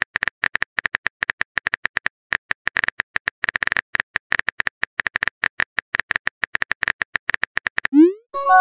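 Phone keyboard typing sound effect: rapid, irregular taps as a message is typed. Near the end a short rising swoosh and a multi-tone chime as the message is sent.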